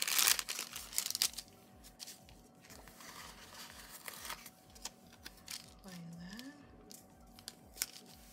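A thin translucent paper sheet and paper stickers being handled on a planner page: crinkling and rustling, loudest in the first second or so, then lighter rustles and small taps of fingers on paper.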